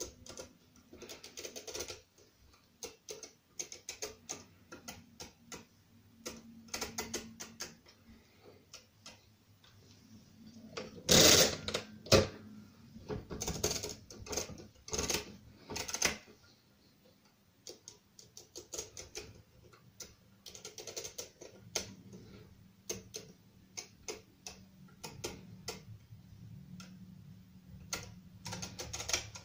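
Brunsviga pinwheel mechanical calculator: its setting levers click through their detents as numbers are dialled into the drum, giving irregular runs of small metal clicks. About eleven seconds in comes a louder burst of mechanical clatter from the machine.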